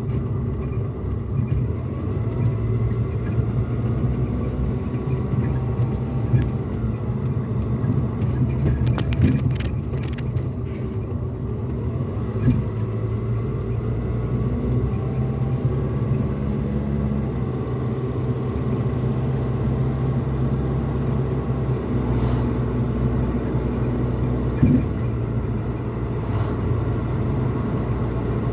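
Pickup truck cabin noise while driving: a steady low rumble of engine and road, with a few short knocks from bumps in the road.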